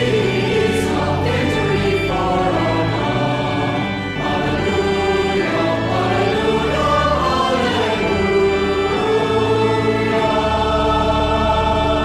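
Choir singing a hymn in phrases over long, sustained low bass notes from the accompaniment.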